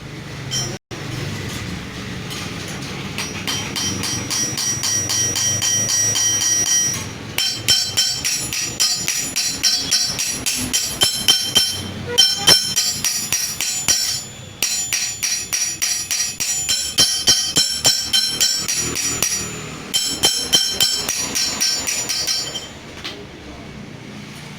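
Steel ring being shaped with rapid hammer blows, several a second, each strike leaving a bright metallic ring. The blows come in runs with brief pauses and ease off near the end.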